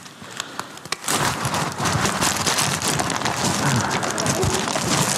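Aluminium foil crinkling and crackling as it is crumpled and pressed by hand around a head, starting about a second in.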